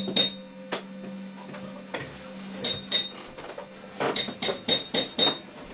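Light, sharp clinks of a hard object that rings briefly: a few scattered strikes, then a quick run of about five near the end. A low steady hum underneath fades out about halfway through.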